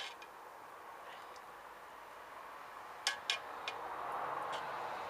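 Metal ladle scooping stew out of a cast-iron Dutch oven, with two sharp clinks about three seconds in and a lighter one just after, over a soft steady hiss.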